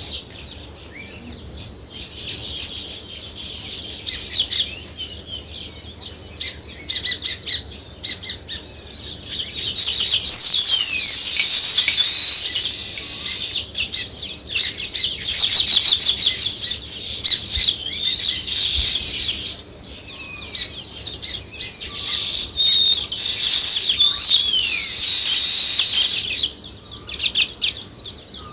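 A flock of small songbirds, sparrows and nest-building weaver birds, chirping and chattering, many calls overlapping. The chorus swells into loud dense stretches about a third of the way in and again later, then thins out near the end.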